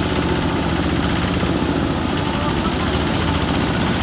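A heavy engine running steadily, with a fast, even knocking rhythm and no change in speed.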